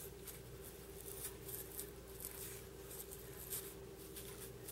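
Small fly-tying scissors snipping deer hair, a string of faint, irregular snips as the fly's deer-hair head is trimmed round.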